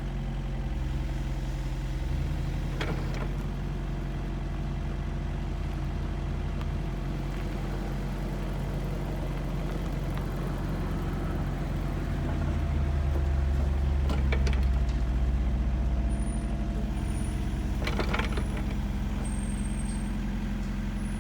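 A heavy construction machine's engine runs steadily, swelling louder for a few seconds past the middle. A few short hissing noises stand out over it, about three seconds in, around fourteen seconds and around eighteen seconds.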